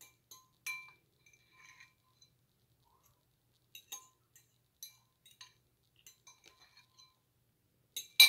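A fork tapping and scraping inside a clear plastic container of noodles, in scattered light ringing clinks, with one much louder clack near the end.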